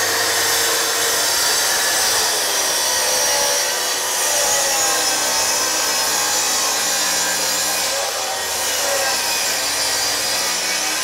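Plunge-cut track saw running on its guide rail while ripping along an oak floorboard: a steady motor whine over the hiss of the blade in the wood, its pitch wavering slightly as the cut goes on.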